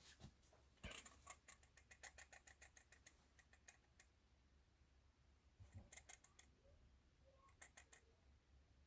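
Faint, sharp clicking from a camera lens component being worked by hand. A quick run of clicks, about six a second, starts about a second in and lasts about three seconds, followed by two short bursts of clicks later on.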